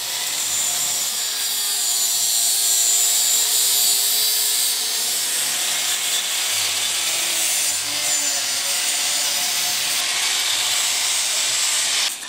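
Angle grinder with a cutting disc slicing through the steel rear frame tube of a Honda CB 750: a loud, steady grinding, with the motor's whine sagging and recovering as the disc bites. It cuts off abruptly near the end as the grinder is switched off.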